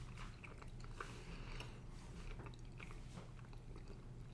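Faint chewing of a square of solid Fazer Blue milk chocolate, with small scattered clicks and crunches from the mouth, over a low steady hum.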